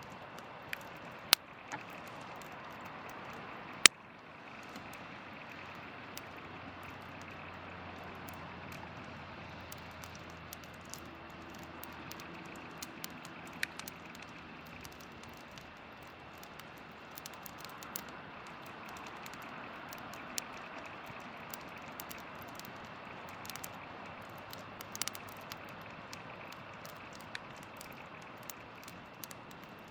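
Wood campfire crackling, with irregular sharp pops and two loud snaps in the first four seconds.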